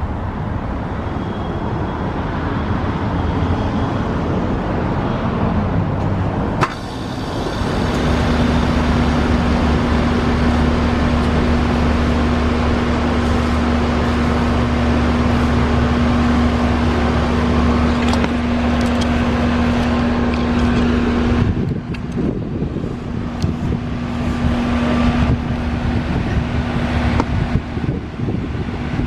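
2000 Lennox Elite 4-ton heat pump outdoor unit starting up. A sharp click about six seconds in is followed by the unit coming on with a steady hum and a held tone. About three-quarters of the way through, the deep part of the hum drops away abruptly while a fainter tone carries on.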